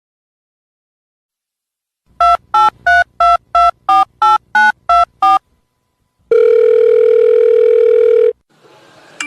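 Telephone keypad dialling: ten quick two-note touch-tone (DTMF) beeps, about three a second, as a number is keyed in. Then, after a short pause, a steady phone tone lasting about two seconds.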